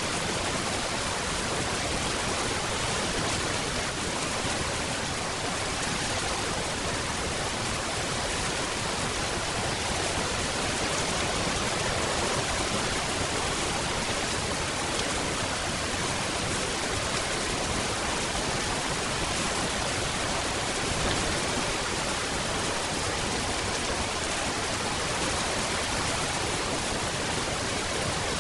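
Steady heavy rain, an even, unbroken hiss.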